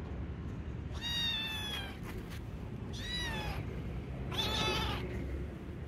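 A cat meowing three times, each a high call that rises and then falls, about a second or so apart, over a steady low background noise.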